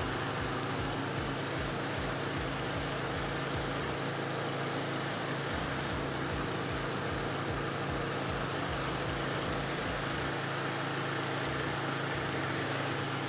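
Gas-powered pressure washer running steadily: the engine's hum under the hiss of the water jet spraying.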